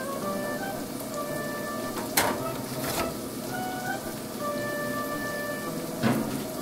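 Light background music over a steady hiss, with a few sharp clacks of a metal baking tray being handled at the oven: about two seconds in, again a second later, and near the end.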